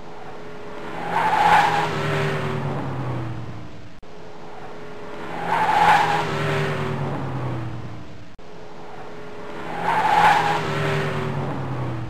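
A car driving past, its engine note falling as it goes by. The same pass-by repeats about every four seconds, three times, with an abrupt cut between each.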